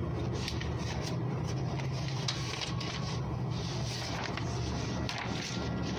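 HP LaserJet 3390 laser printer running with a steady hum just after printing a test page. A few short clicks and paper rustles come from the printed sheet being handled.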